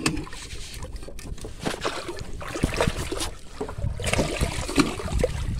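Water sloshing against the side of a small fishing boat, mixed with scattered small knocks and scrapes of handling on deck.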